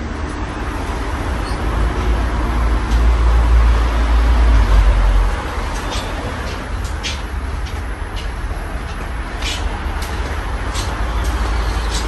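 Casablanca Four Seasons III ceiling fan running, a steady low rumble and airy rush that swells for a couple of seconds and drops back about five seconds in. Scattered light clicks come in over the second half.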